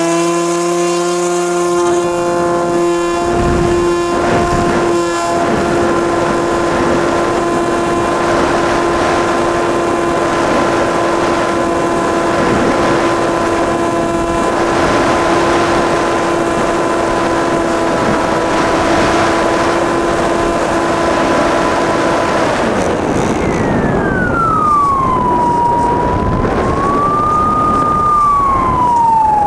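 Electric RC plane's brushless motor whining at a steady high pitch, heard from the onboard camera over rushing wind noise. Near the end the pitch drops, rises briefly and falls again as the throttle changes.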